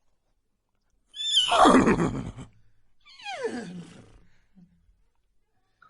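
Horse whinnying: a loud call about a second in, then a second call that slides down in pitch.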